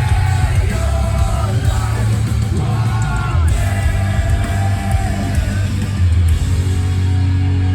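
Live metalcore band playing loud, with distorted guitars, heavy bass and drums, and a vocalist singing over it.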